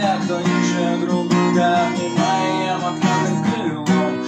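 Acoustic guitar strummed in chords as a song accompaniment.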